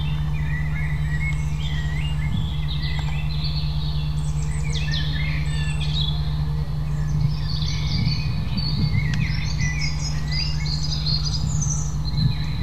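Small songbirds chirping and twittering busily, with many quick overlapping calls, over a steady low drone.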